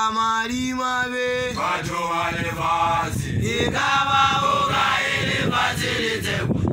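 Young Basotho initiation graduates (makoloane) chanting a song. A lead male voice opens with a long held note, then the voices carry on in shorter chanted phrases.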